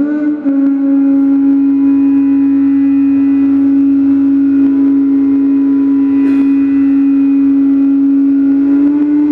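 Bansuri (Indian bamboo flute) playing: a quick stepwise climb at the very start lands on one long, steady held note that lasts about nine seconds and lifts slightly in pitch near the end.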